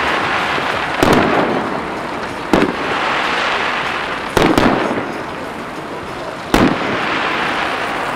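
Aerial fireworks shells bursting overhead: four sharp bangs, about one, two and a half, four and a half and six and a half seconds in, with dense crackling between them.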